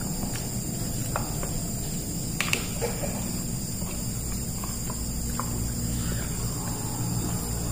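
Steady, high-pitched chirring of night insects that does not let up. Over it come a few small clicks and taps, the sharpest about two and a half seconds in, from hands picking at food on plates.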